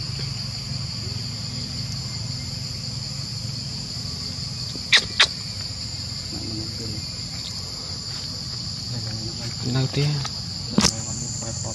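Steady high-pitched insect chorus. It is broken by two quick sharp clicks about five seconds in and one more near the end.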